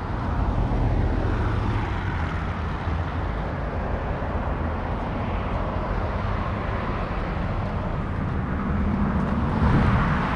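Outdoor background noise: a steady low rumble and hiss, swelling for a moment about nine seconds in.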